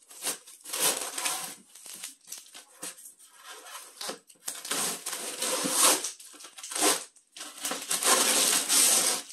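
Yellow packing tape being pulled and torn off the lid of a polystyrene foam shipping box, in several long noisy stretches with short pauses between.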